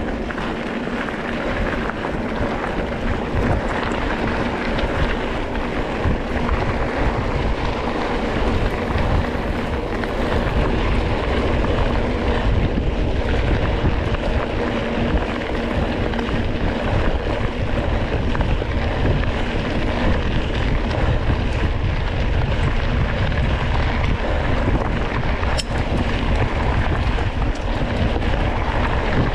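Wind rushing over the microphone and a steady low rumble as a Surly Krampus single-speed mountain bike is ridden hard over the trail at race pace.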